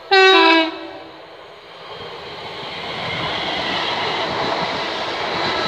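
London Northwestern Railway Class 350 Desiro electric multiple unit sounding a short two-tone horn, a high note then a lower one, followed by the growing rush and rumble of the train running past at speed.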